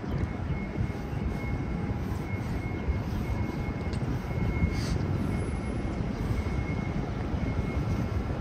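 Steady low rumble of city vehicles, with a brief sharper sound near the middle.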